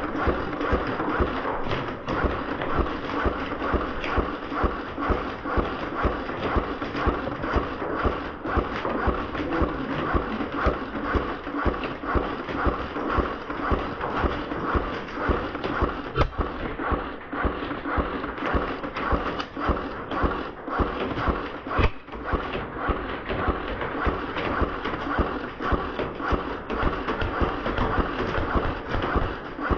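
Footsteps of a player in airsoft gear walking at a steady pace, about two steps a second, over a constant rustle of clothing and gear against the body-worn microphone.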